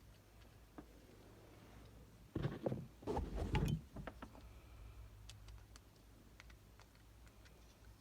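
Handling noise from working the plastic door-lock bezel, its screws and a screwdriver by hand: scattered light clicks, with a louder irregular clatter about two and a half to four seconds in.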